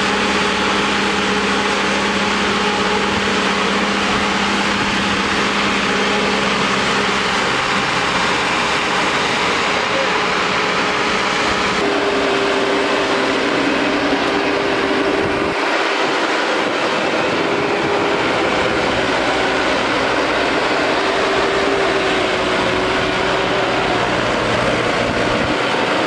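LOVOL RG108 tracked rice combine harvester running: a steady, loud diesel engine hum with mechanical clatter from the tracks and threshing machinery. The held engine tone shifts in pitch about twelve seconds in.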